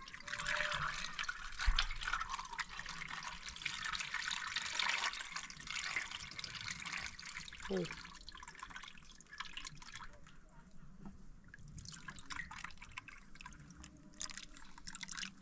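Liquid trickling and dripping, loudest in the first half and thinning out later.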